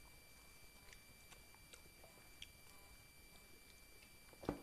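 Quiet chewing and eating, with faint small clicks scattered throughout, then a single sharp knock near the end.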